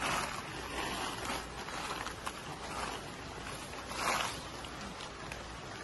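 Dried red Korean chillies rustling as gloved hands sweep and sort through a pile of them, in swells with the loudest about four seconds in.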